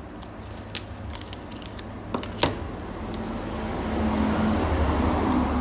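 Two sharp metal clicks from a Zippo lighter being handled, the louder one about two and a half seconds in. Then a passing motor vehicle's engine rumble swells and holds over the last couple of seconds.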